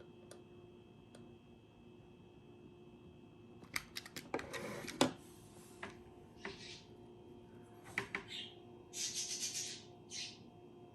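Sharp clicks and a brief clatter of metal and glass parts of a balance siphon coffee maker being handled, with several short hissy bursts after, over a faint steady hum.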